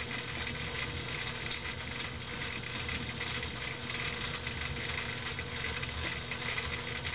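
Steady machine hum with a low hiss, holding a constant pitch, and a faint tick about a second and a half in.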